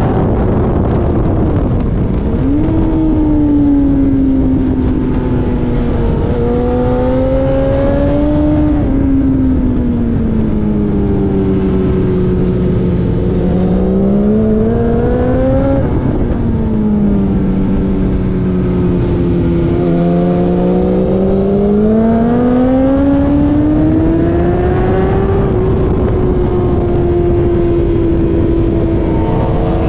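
A racing car's engine running hard for the whole stretch. Its pitch climbs and falls slowly over several seconds at a time as the car speeds up and slows, and drops suddenly about halfway through before climbing again.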